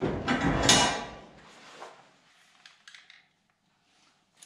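A second-long metal clatter and scrape from the electric winch being handled on its mount, fading out by about two seconds in, followed by a few faint clicks.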